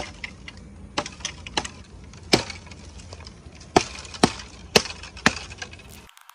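A machete chopping dry bamboo: about seven sharp, irregular strikes of the blade into the cane.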